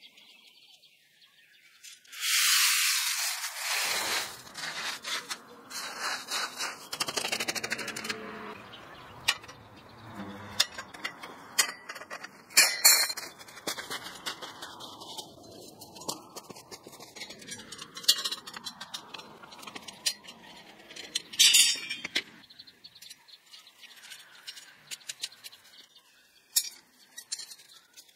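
Hand work with steel rebar and tie wire over gravel: scattered metal clinks, clicks and scrapes. A louder rasping rush comes about two seconds in and lasts a couple of seconds, and sharper knocks come near the middle and about three quarters through.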